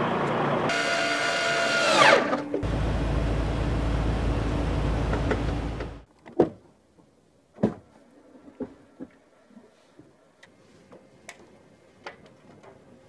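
A loud, steady sound whose tones drop sharply in pitch about two seconds in, then a low rumble that cuts off suddenly about six seconds in. After it come scattered quiet knocks and clicks of a hand gripping a truck cab's grab handle and a shoe stepping up onto the cab step.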